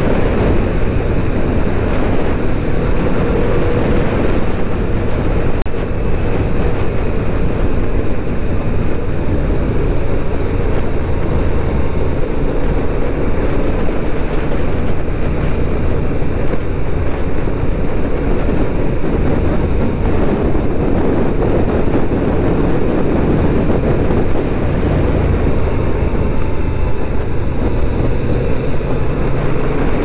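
Motorcycle engine running at a steady pace under way, with heavy wind and road rush over it.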